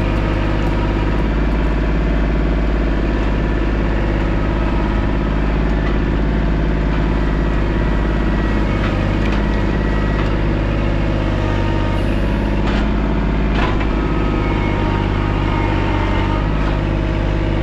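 Compact tractor's diesel engine running steadily as the tractor drives with a log on its front-loader forks, with a few brief clicks partway through.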